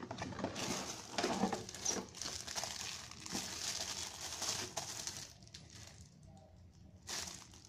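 Clear plastic packaging sleeve crinkling and rustling while a wrapped bag is pulled from a cardboard gift box and handled; it quietens for a while near the end.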